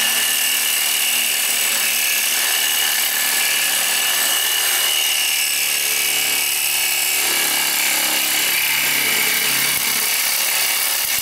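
Reciprocating saw cutting through an exhaust pipe beside the muffler, running steadily with a high metallic ring.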